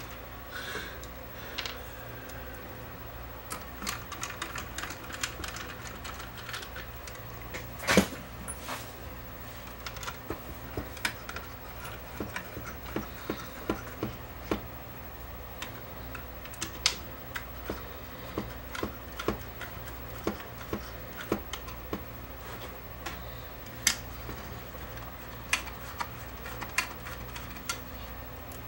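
Scattered small clicks and taps of hands working on an opened rack-mount audio interface, handling its boards, sliders and jack connectors, over a low steady hum. There is one louder knock about eight seconds in.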